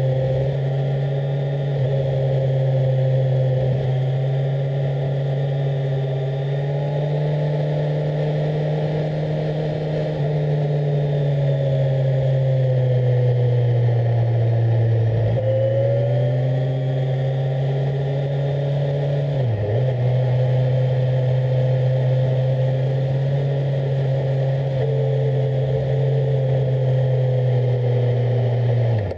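Kawasaki Z1000SX's inline-four engine running steadily under way, its note sagging and rising gently with the throttle. The pitch dips briefly and recovers three times: about halfway, about two-thirds of the way in, and at the very end.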